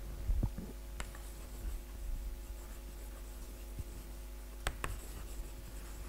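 Chalk writing on a blackboard: faint tapping and scratching of the chalk stick, with a few sharper taps, over a low steady hum.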